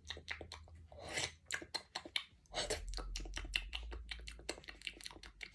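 Quick run of small clicks and rattles, thickening about halfway through: Nerds candy being shaken out of the box onto cereal.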